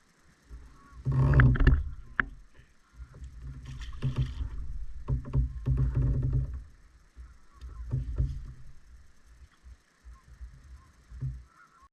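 Small fishing boat on the lake: irregular low rumbling bursts with a few knocks from the hull and water, loudest about a second in and again between four and six seconds.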